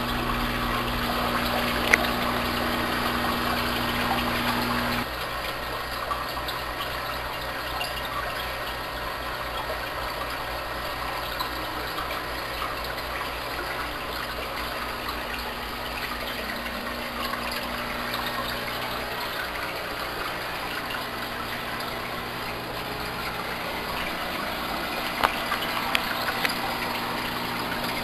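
Aquarium air pumps humming while their air diffusers and the tank's filters keep up a steady bubbling and splashing of water. A few light clicks near the end.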